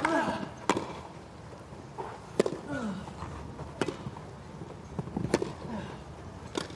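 Tennis rally: a racket strikes the ball five times, about every one and a half seconds, as the players trade groundstrokes.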